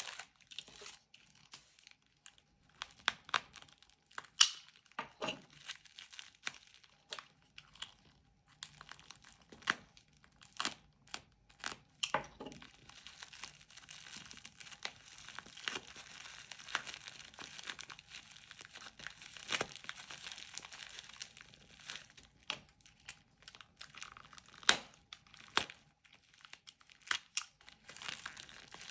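Packaging being handled and opened: crinkling and rustling with many scattered sharp clicks and taps, denser in the middle stretch.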